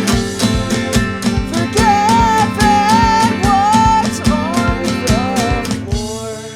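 Instrumental break of a rock song: guitars playing over a steady beat, with a bending lead melody in the middle. The beat stops near the end, leaving sustained guitar notes ringing.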